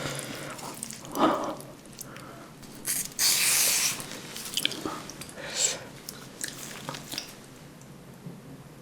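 Close-miked eating sounds of a person chewing black bean noodles and kimchi: wet chewing, smacking and clicking mouth sounds, with a sharp burst about a second in and a loud noisy stretch of about a second about three seconds in.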